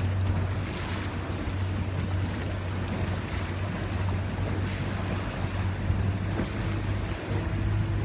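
Boat engine running with a steady low hum, under the wash of water and wind buffeting the microphone.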